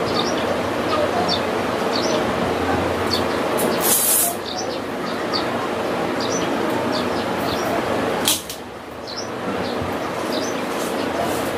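Small birds chirping repeatedly over a steady background hiss, with a brief ripping sound about four seconds in and a shorter one a little after eight seconds.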